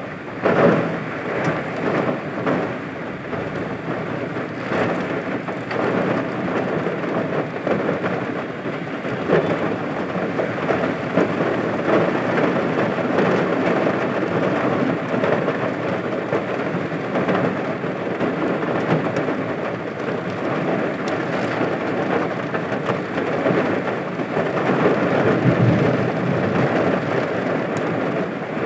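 Heavy rain pouring down in strong, gusty wind: a steady rush that swells and eases with the gusts, with rain spattering on surfaces.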